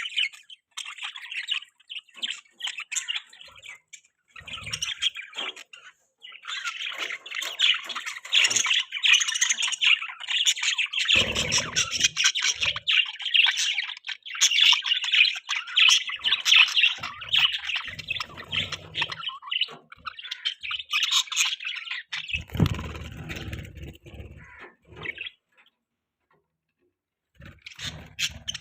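Budgerigars chirping and chattering in fast, dense streams of short high notes. The chatter breaks off briefly several times and stops altogether for about two seconds near the end. Two short low bumps sound under it, one in the middle and one later.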